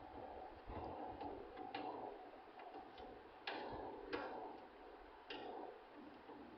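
Screwdriver tightening the screws that hold a hard drive in a DVR's metal case: faint scraping with a handful of sharp clicks.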